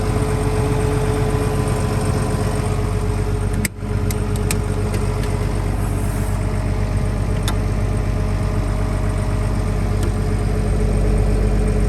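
Cat M316C wheeled excavator's Tier 3 diesel engine idling steadily, with a brief break in the sound a little under four seconds in.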